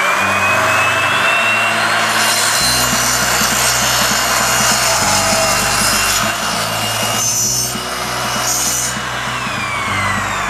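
Miter saw motor spinning up to speed with a rising whine, running steadily for several seconds on its newly fitted drive belt, then winding down near the end. This is a test run after the belt replacement.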